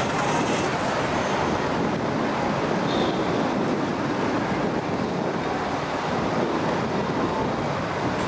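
Steady rushing outdoor noise: wind on the microphone mixed with the sound of traffic, with no distinct events.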